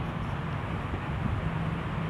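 Steady outdoor background noise with a faint low hum that grows slightly stronger about halfway through.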